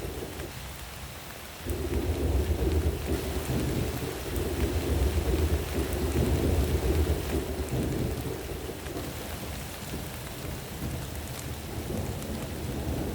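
Thunder rumbling over steady rain. The rumble drops away briefly at the start, swells back suddenly about a second and a half in, and eases off in the second half while the rain hiss goes on.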